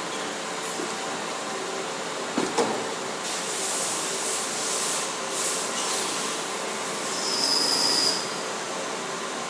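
Steady hum of a machine-tool shop, two metal clanks about two and a half seconds in, then several bursts of compressed air hissing, the last and loudest with a whistle, as from an air blow gun cleaning a machined part.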